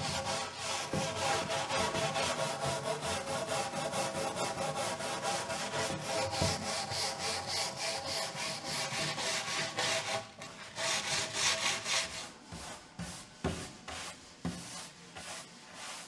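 Hand wire brush scrubbing old flaking paint off a wooden board in rapid back-and-forth strokes, cleaning it for repainting. About ten seconds in, the strokes become slower and more spaced out.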